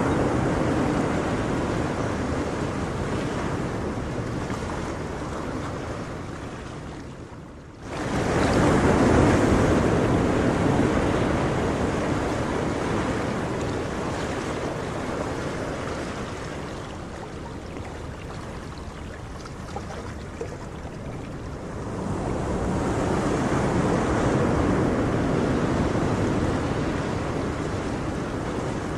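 Ocean surf: waves washing in, swelling and slowly fading away again. About eight seconds in the sound sinks low and then comes straight back at full strength, and it swells once more near the end.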